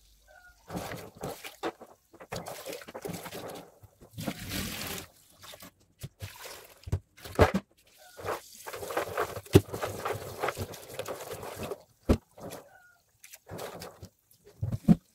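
Tap water running into a plastic basin of soaked beans while hands swish and rub the beans in the water. The sound breaks off and starts again several times, with a few sharp knocks, the loudest near the middle.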